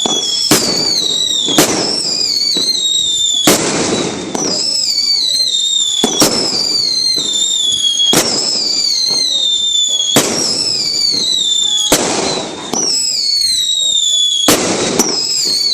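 Galaxy 2 compact firework cake firing: sharp bangs every one to two seconds, overlaid by many warbling whistles that slide down in pitch.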